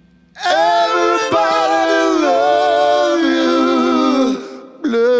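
Unaccompanied singing voices in harmony, a cappella, holding long notes through one phrase after a brief hush. The singing breaks off about four and a half seconds in, and the next phrase starts just before the end.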